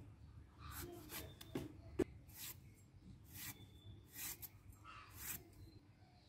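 A tomato being sliced on the upright blade of a boti, the Bengali standing knife: a run of short, faint cutting strokes, with one sharper click about two seconds in.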